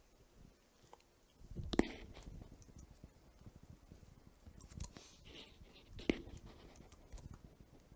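Quiet pause at a lectern microphone: room tone with a few faint clicks and small handling or mouth noises, the sharpest click about two seconds in and another about six seconds in.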